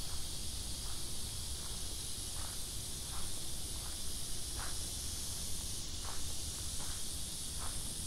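Steady high-pitched hiss of a summer insect chorus, with a low rumble underneath and faint short taps, roughly one or two a second, from footsteps of someone walking.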